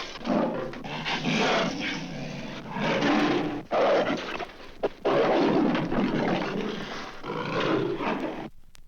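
Leopard snarling and growling in a series of harsh, broken bursts, from a 1960s vinyl sound-effects record; it stops abruptly near the end as the track ends.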